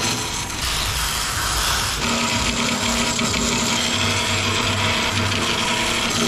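Metal-cutting band saw running and cutting through aluminium box-section tube, a steady machine-and-cutting noise.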